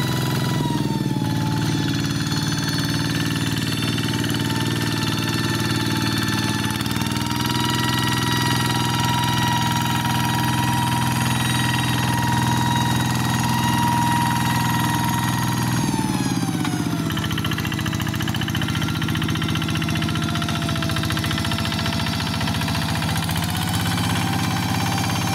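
Walk-behind hand tractor's single-cylinder diesel engine running steadily under load as its cage wheels churn through flooded paddy mud. The engine note drops about a second in and again around sixteen seconds in, picking back up in between and near the end.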